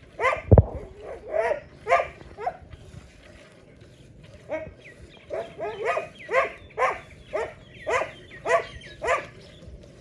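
An animal barking or calling in short, sharp calls, about two a second, with a pause of a second or so near the middle. There is one loud low thump just after the start.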